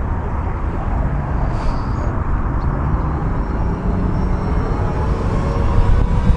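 Steady low outdoor rumble, with a faint rising whine near the end.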